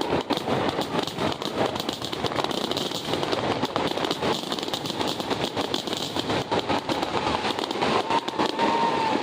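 Fireworks crackling: a dense, rapid run of small pops and crackles, with a short held high tone near the end.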